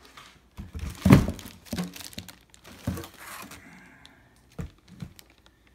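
Cardboard box and plastic-wrapped drum being handled: a string of knocks and thumps, the loudest about a second in, with some crinkling of plastic between them.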